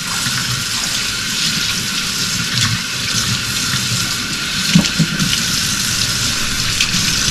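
Kitchen faucet running steadily into a stainless steel sink as a bunch of asparagus spears is rinsed under the stream, the water splashing off the spears. A brief soft knock about five seconds in.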